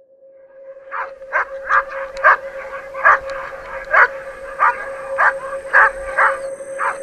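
Sled-team huskies barking over and over, sharp barks about two a second that start about a second in, with a steady high tone underneath.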